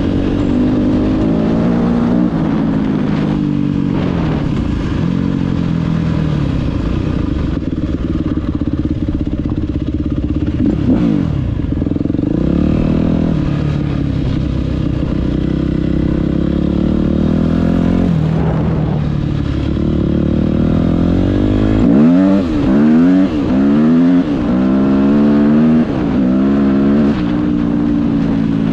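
A 2005 Yamaha YZ250F's 250 cc four-stroke single-cylinder engine running under way as the dirt bike is ridden. Its pitch rises and falls with throttle and gear changes through its swapped-in WR250F transmission, with a run of quick revs about two-thirds of the way in.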